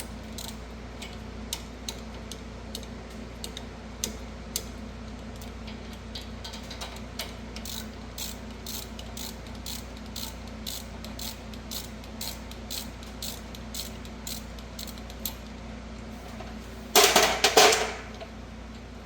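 Ratchet wrench with a long 10 mm socket clicking as it backs out the Loctited rear brake caliper bolts, in short runs of clicks. A loud metallic clatter comes near the end.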